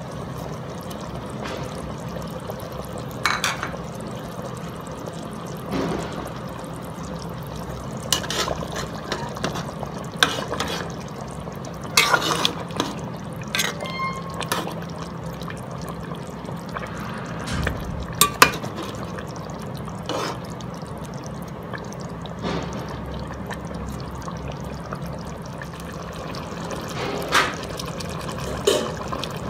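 Chicken stew in tomato broth simmering in a large pot, with bubbles popping at irregular moments every second or two over a steady low hum.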